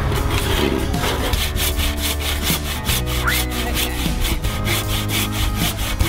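Hand pruning saw cutting through a wooden log in quick, regular back-and-forth strokes, starting about a second in.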